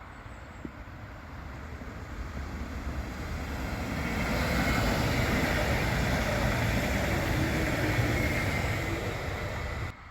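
A train passing at speed, a rushing rumble of wheels on rail that builds over about four seconds, stays loud, then cuts off suddenly near the end.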